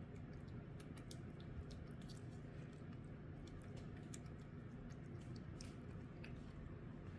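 A cat licking a creamy treat from a squeeze tube: a quick, irregular run of faint wet licking clicks, several a second.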